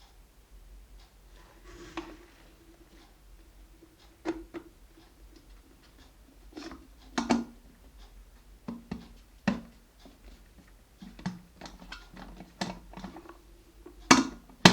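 Irregular clicks and knocks of small hard objects being handled, about a dozen spread unevenly, with the sharpest near the end.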